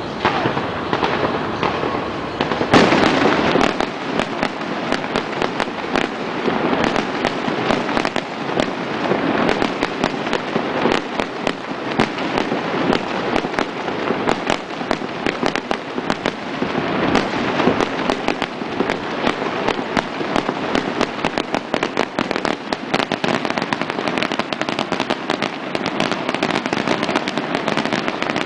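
Aerial fireworks going off without a break: dense crackling and rapid pops, with a loud burst about three seconds in.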